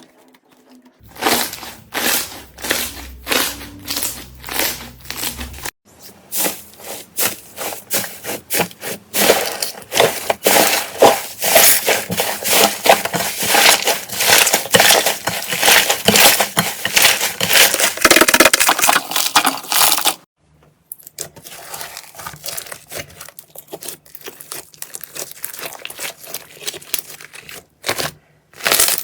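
Slime being squeezed and pressed by hand, giving dense crackling, crunching pops. The sound breaks off briefly three times as one clip gives way to the next.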